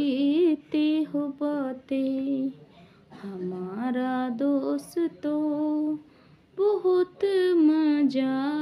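A woman singing unaccompanied in short phrases of long, wavering held notes, with brief pauses between phrases.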